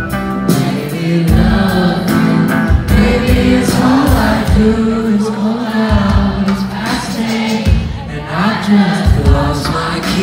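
Live band playing a song with drums, electric guitars and a sung lead vocal, heard loud through the venue's PA from among the audience.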